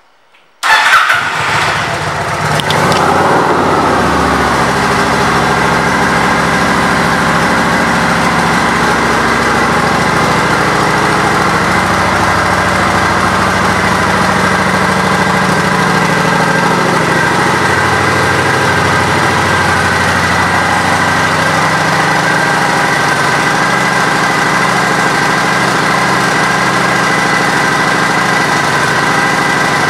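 Kawasaki Vulcan 900 Classic's V-twin engine starting about half a second in, loudest just as it catches, then idling steadily.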